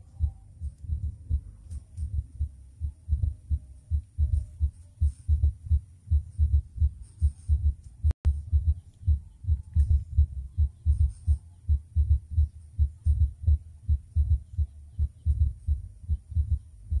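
Wind buffeting the microphone in quick, uneven low thumps, two or three a second, with a brief dropout about eight seconds in.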